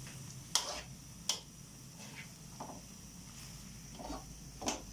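Metal utensil stirring meat in a steel wok, clinking against the pan a few times with two sharp clinks in the first second and a half and lighter ones later, over a faint sizzle.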